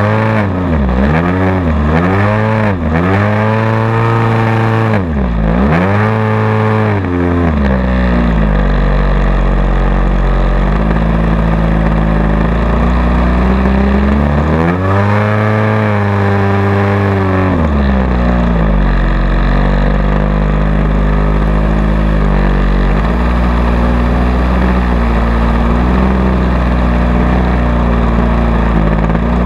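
Radio-controlled model airplane's engine heard from a camera on board, its pitch swinging up and down several times in the first seven seconds, then running steadier, with another rise and fall in the middle, as the plane flies aerobatic manoeuvres.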